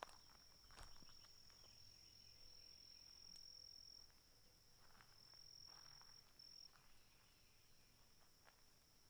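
An insect's continuous high-pitched steady drone, faint, with a few soft footsteps on the ground.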